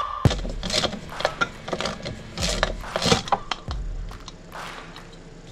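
Ratchet wrench clicking in short spells as the valve-cover bolts of a Dnepr MT-11 boxer engine's cylinder head are undone, with light metal clinks between them.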